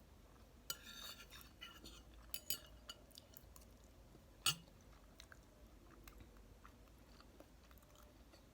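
Quiet chewing of a last mouthful of Samyang buldak carbonara noodles, with small clicks and crackles. A single sharper click comes about four and a half seconds in.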